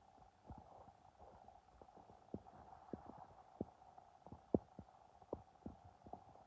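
Empty stomach making small, irregular clicking pops, faint, over a steady low hum; the loudest pop comes about four and a half seconds in.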